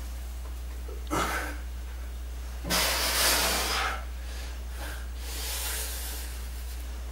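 A man breathing hard under the load of dumbbell squats: a short sharp exhale about a second in, then a long, loud exhale as he drives up out of the squat, followed by softer breaths. A steady low hum runs underneath.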